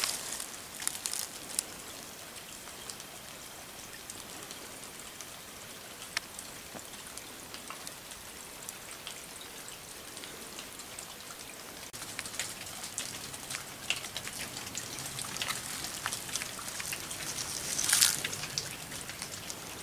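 Dry leaves and twigs crackling and crunching underfoot on the forest floor, with scattered light clicks. There is a louder crunch right at the start and another near the end.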